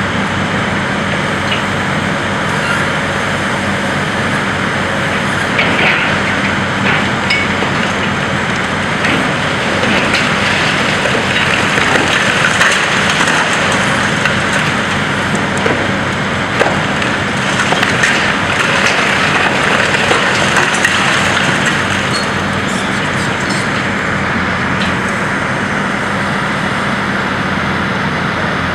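High-reach demolition excavator's diesel engine running steadily while its attachment breaks into the concrete floors, with scattered cracks, crunches and the clatter of falling rubble, busiest through the middle.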